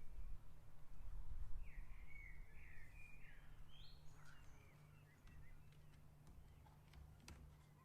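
Birds chirping a short series of gliding calls about two seconds in, over a low rumble and a steady hum. A few light clicks come near the end.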